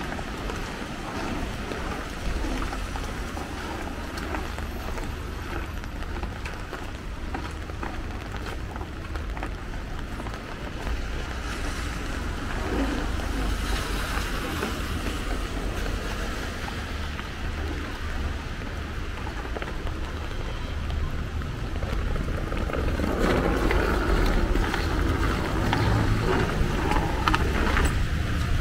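Street traffic on a rain-wet road: a steady hiss of tyres on wet tarmac over a low rumble. A vehicle draws closer and grows louder over the last few seconds.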